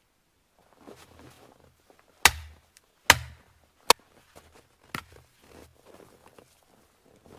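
Four sharp knocks about a second apart, the first two loudest with a brief ring after each, among quieter rustling and handling noises.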